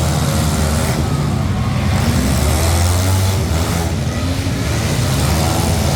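Demolition derby car engines running loudly, their pitch rising and falling as they rev.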